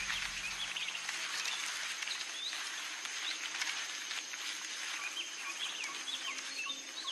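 Outdoor nature ambience: many small birds chirping in short rising calls over a dense steady hiss and a high steady whine. A low background music chord cuts off within the first second.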